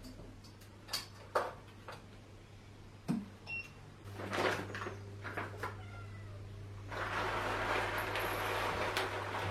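Household handling noises: scattered clicks and knocks, a few faint short gliding calls, then a steady hiss that starts about seven seconds in.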